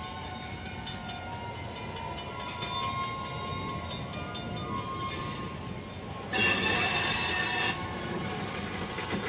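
Open-top freight cars rolling slowly while being shoved, their steel wheels squealing in thin, steady high tones over a low rumble. About six seconds in, a louder burst of noise lasts about a second and a half.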